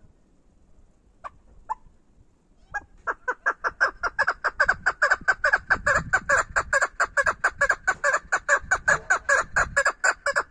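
Female chukar partridge calling: two single notes, then from about three seconds in a long, fast run of clucking 'chuk' notes, about five a second, that stops near the end.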